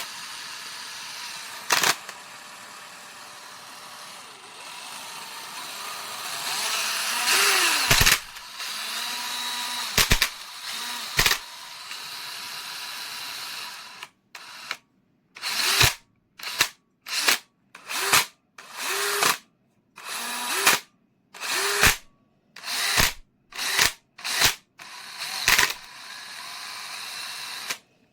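Cordless drill running: a steady stretch with a few knocks, then a dozen or so short bursts of the motor speeding up and winding down, each cut off abruptly.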